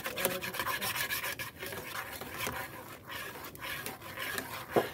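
A spoon stirring thick flour-and-milk pudding (bulamaç) in a pan, scraping the bottom in repeated rough rasping strokes.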